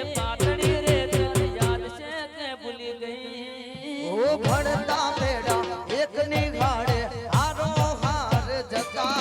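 Instrumental Gujarati folk raas dance music: steady drum strokes under a wavering lead melody. The drums drop out for about two seconds near the middle, then come back in.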